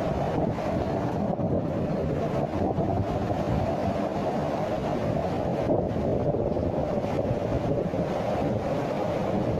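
Fast-flowing floodwater rushing down a street and churning around parked cars: a steady, loud rush of water.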